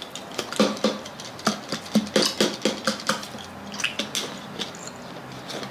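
Thin plastic water bottle being handled: irregular crackling and clicking of the crinkly plastic and its screw cap being twisted, with a little water sloshing.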